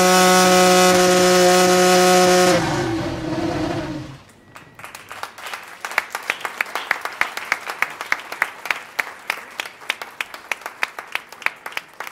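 McLaren MCL35 Formula 1 car's Renault 1.6-litre turbocharged V6 hybrid power unit running at steady held revs, then cut about two and a half seconds in and winding down. A room of people then applauds, with sharp individual claps.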